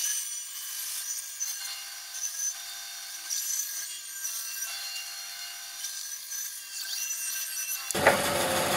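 Bandsaw blade cutting through a slice of log, a steady, thin, high-pitched sawing. A fuller, louder sound comes in near the end.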